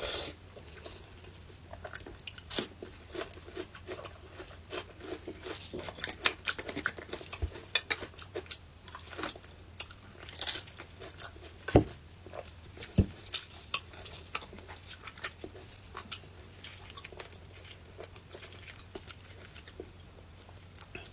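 Close-up eating sounds of a person chewing and biting soft beef bone marrow, with a metal spoon clicking and scraping against the marrow bones. Irregular wet clicks run busiest through the first two-thirds, with a couple of dull knocks a little past the middle.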